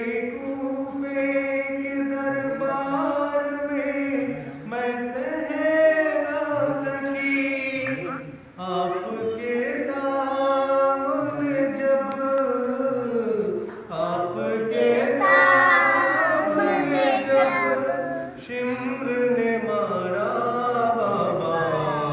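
Unaccompanied noha, an Urdu mourning lament, sung in long held, wavering notes by a male reciter, with other voices, including boys', joining in as a chorus.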